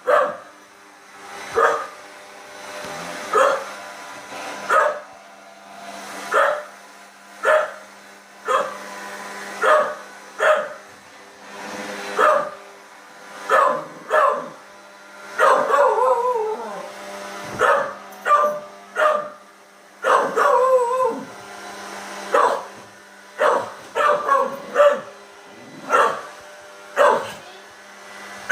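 Beagle barking repeatedly at a running robot vacuum, roughly one bark every second or so, with a few longer barks that slide down in pitch in the middle; the dog is scared or feels threatened by the machine. The robot vacuum's steady hum runs underneath.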